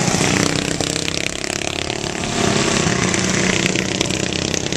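Several racing riding lawn mowers' small engines running together at speed, their overlapping engine notes shifting in pitch as they pass.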